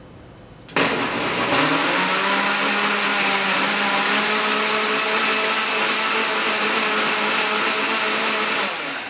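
Countertop blender switched on about a second in at its liquefy setting: the motor spins up quickly, then runs steadily as it purées chunks of watermelon. It begins to wind down near the end.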